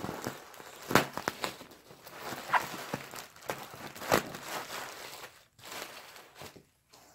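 Bubble wrap being handled and pulled around a wrapped mirror, crinkling and crackling with irregular sharp clicks, dying down for the last couple of seconds.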